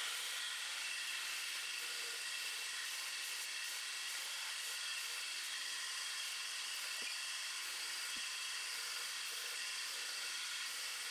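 Feather damascus steel blade being ground on a running belt grinder: a steady high-pitched hiss of the abrasive belt on steel.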